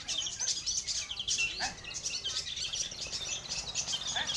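A dense chorus of many songbirds chirping and trilling at once, as in a bird-song contest, with a few lower sweeping whistles about one and a half seconds in and near the end.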